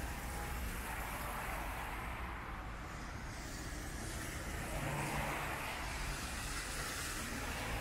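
Road traffic on wet asphalt: cars passing close by, their tyres hissing on the wet road over a steady low rumble, with swells as vehicles go by about a second in and again around five seconds in.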